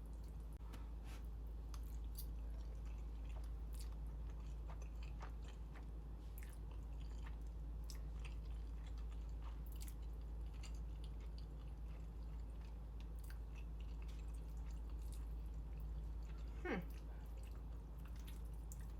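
A person chewing and eating a mouthful of sweet spaghetti with sliced hot dogs, with small wet clicks and smacks, over a steady low hum.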